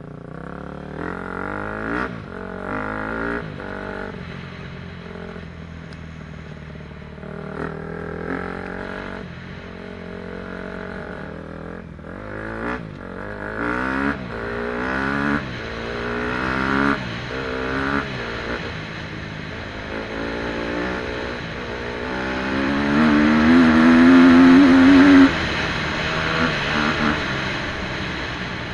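KTM 250 SX-F dirt bike's single-cylinder four-stroke engine pulling through a series of short throttle bursts, its pitch rising and dropping with each one. Near the end comes a longer, louder rising rev that cuts off abruptly.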